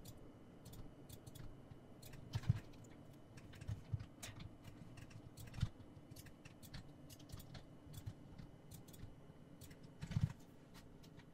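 Faint, irregular clicks and taps of a computer keyboard and mouse, a few of them a little louder.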